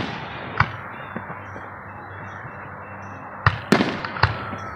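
Aerial firework shells bursting with sharp bangs that echo away: one about half a second in, then three in quick succession near the end, over steady background noise.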